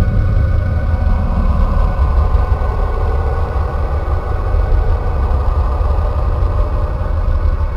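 A planet 'sound', space data turned into audio: a steady, loud low rumble with faint held tones above it, unchanging throughout.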